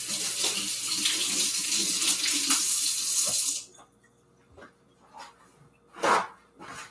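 Kitchen tap running, water splashing into the sink in a steady rush, shut off about three and a half seconds in. A few faint clicks follow, and a short, sharp noise comes near the end.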